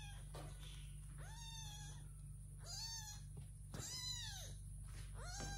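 A kitten meowing over and over: four high-pitched meows, each rising and then falling in pitch, about a second and a half apart.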